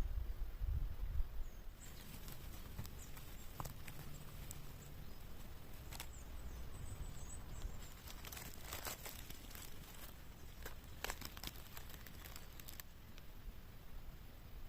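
Dry leaf litter and twigs on a forest floor rustling and crackling, with a run of sharp snaps. It starts about two seconds in, is densest past the middle and stops shortly before the end.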